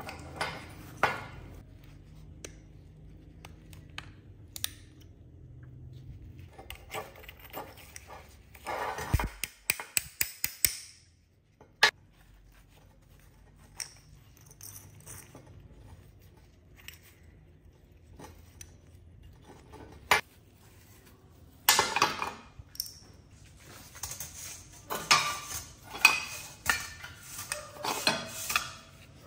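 Metal parts and hand tools clinking and clattering as they are handled on a workbench, in scattered flurries with sharp single clicks between them.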